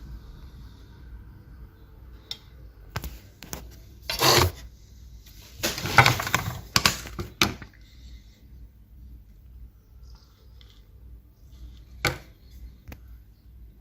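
Scattered clicks and knocks of objects being handled, with two louder bursts of scraping or rustling, about four seconds and six seconds in.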